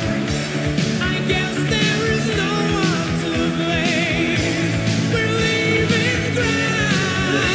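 Background rock music with a singing voice and a steady beat.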